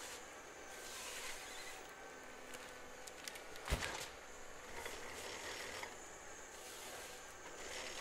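Forestry machine working at a distance: a hissing sound that swells and fades about every second and a half, with one sharp crack about halfway through.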